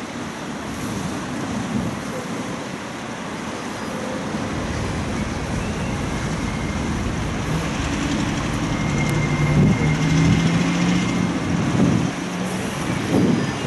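A motor barge's diesel engine drones low and steady as the barge passes close, growing louder through the second half. Road traffic noise and wind on the microphone run underneath.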